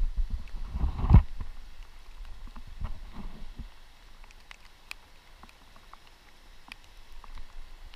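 Wind and handling rumble on the camera microphone with a thump about a second in, then scattered sharp ticks of raindrops striking the wet camera.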